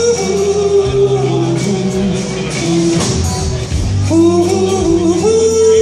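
Live rock band playing, with sung vocals and electric instruments over drums and cymbals, heard as a concert recording.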